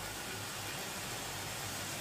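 A steady, even hiss with a faint low hum underneath.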